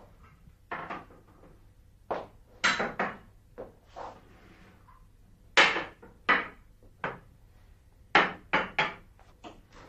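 Hard-soled footsteps on a floor, mixed with knocks of porcelain teacups and saucers being set down on a glass coffee table: separate sharp knocks in uneven groups, with a quicker run of steps near the end.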